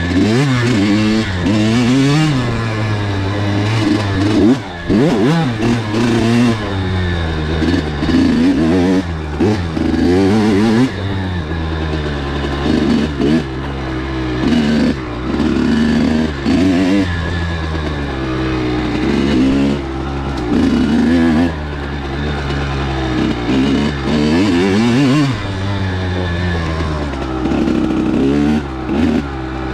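Kawasaki KX100 two-stroke dirt bike engine revving up and falling back again and again under riding, the pitch climbing and dropping with each throttle opening, with brief drops in loudness every few seconds as the throttle is shut off.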